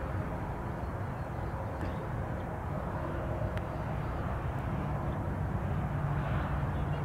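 Airliner engines running at a distance: a steady rumble with faint steady tones, growing a little louder near the end.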